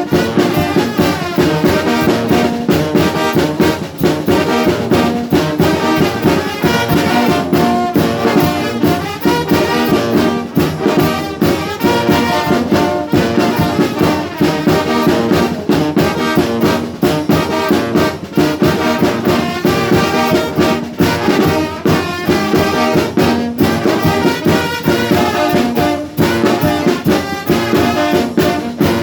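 Brass band (banda de viento) playing a dance tune: trumpets and trombones over a steady beat.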